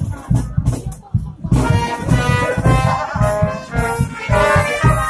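Marching brass band playing in the street: trombones and trumpets come in with full sustained chords about a second and a half in, over a steady beat.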